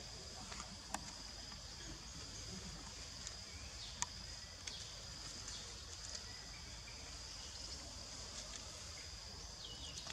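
Steady high-pitched insect drone over a low background rumble, with two sharp clicks about one and four seconds in.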